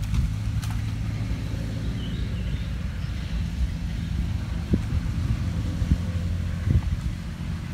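A low, steady engine drone, with a few light splashes and knocks as a gill net is lifted through the water, and a few short bird chirps about two seconds in.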